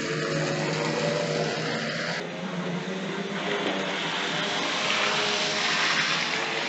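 OO gauge model train running on the layout: a steady electric motor whirr with wheel noise on the rails, getting louder in the second half as the train passes close by.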